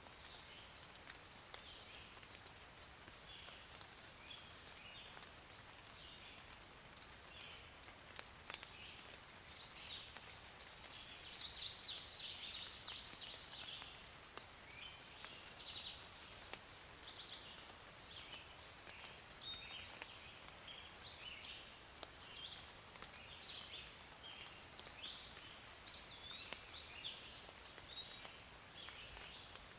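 Several birds chirping and calling over a faint steady hiss, with one louder rapid trill about ten seconds in.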